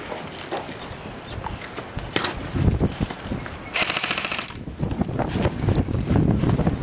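G&G M5-S5 MP5-style electric airsoft gun firing one short full-auto burst, under a second long, about four seconds in. Low thumps and rustling from handling surround it.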